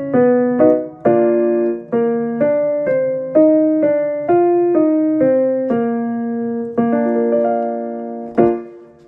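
Piano playing a vocal warm-up accompaniment: a steady sequence of struck notes and chords stepping up and down, each fading after it is struck, ending on a final chord near the end that dies away.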